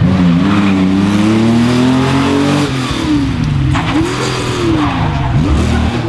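Classic Porsche 911 rally car's flat-six engine at full throttle, its pitch rising steadily for the first couple of seconds, then dropping sharply as the driver lifts off about halfway, and revving up and down through the rest as it takes the corner and passes.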